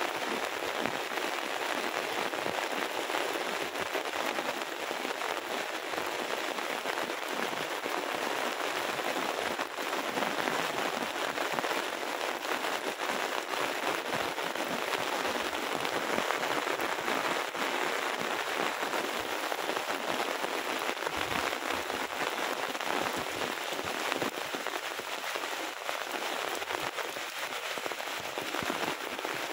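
Heavy rain falling steadily: an even hiss dotted with many small drop ticks.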